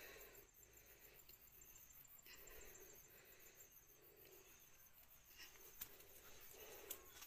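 Near silence: faint background hiss with a faint, regular high ticking.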